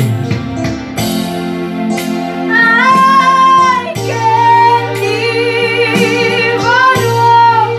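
A woman singing a slow song with vibrato over sustained chords she plays on an electronic keyboard. The keyboard chords sound first, and her voice comes in about two and a half seconds in.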